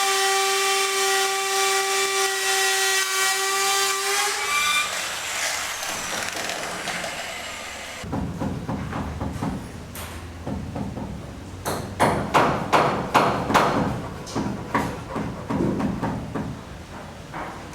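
A power tool runs with a steady whine and hiss, then winds down about five seconds in. After a short lull comes a run of irregular knocks, as of hammering on wood, quickest and loudest around twelve to fourteen seconds in.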